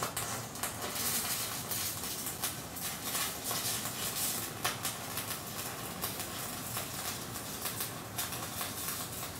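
Stick-welding arc on aluminium with a Zeller 480 silicon-aluminium electrode, burning steadily: a continuous crackling hiss dotted with frequent sharp pops.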